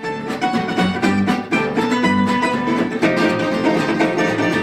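Tambura, a long-necked plucked lute, played in a quick run of picked notes.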